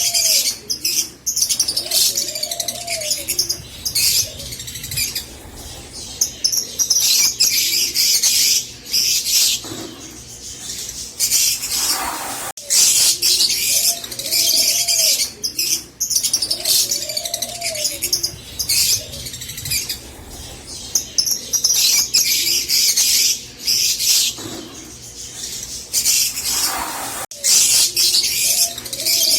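Green Fischer's lovebirds singing: rapid, high-pitched chattering and chirping in bouts several seconds long, broken by short lulls. This is the long 'giggling' (ngekek) song these birds are bred for.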